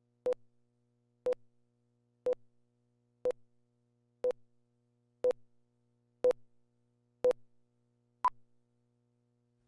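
Broadcast countdown leader beeps: nine short tone beeps, one each second, the last one higher in pitch than the rest.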